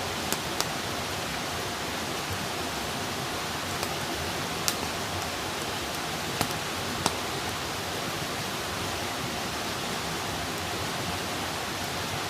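Wood campfire burning: a steady hiss from the flames with a handful of sharp crackles and pops from the burning wood.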